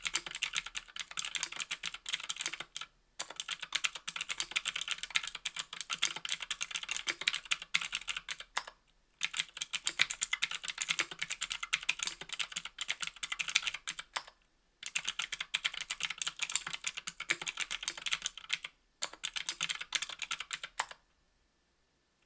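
Fast typing on a mechanical keyboard with Gateron Green clicky switches in an aluminium 60% case: a dense stream of sharp, bright clicks, broken by three short pauses and stopping about a second before the end.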